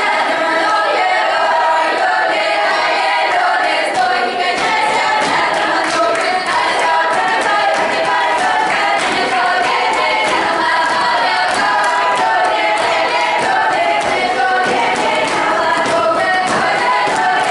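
A children's folk ensemble singing a Russian traditional song together as a choir, with no instruments to be heard.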